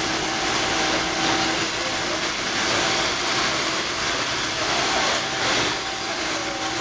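Matzo dough sheeting and cutting machinery running: rollers and drive motors of a Clermont dough sheeter making a steady mechanical din with a constant hum.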